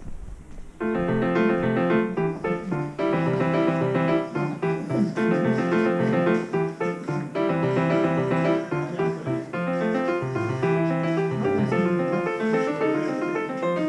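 Piano music playing, a run of quick keyboard notes starting about a second in.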